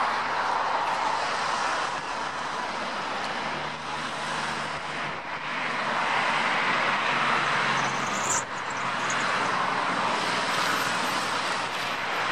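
Airbus A350's Rolls-Royce Trent XWB turbofans heard from a distance as the airliner rolls along the runway: a steady rush of jet engine noise. A short click comes about eight seconds in.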